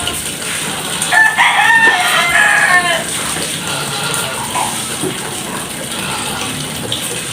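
A rooster crowing once, a call about two seconds long, over a steady background hiss.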